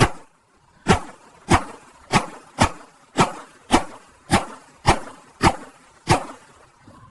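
A regular series of sharp knocks, about ten of them at a little under two a second, each dying away quickly. They stop near the end.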